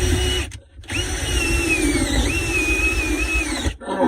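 Power drill driving screws: the motor whines, stops about half a second in, then runs again for nearly three seconds with its pitch sagging midway as it comes under load.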